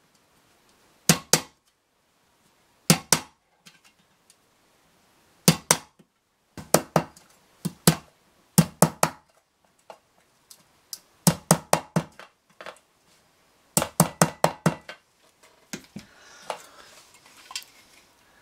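A pin being tapped through a thin aluminium tin lid with the head of a wooden-handled tool, punching holes: sharp metallic taps in quick groups of two to four, a group every second or two. Near the end the tapping stops and only faint handling of the tin is heard.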